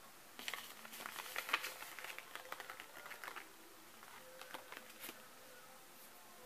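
Light rustling with many short crackling clicks, thickest in the first half, then a few scattered clicks about five seconds in.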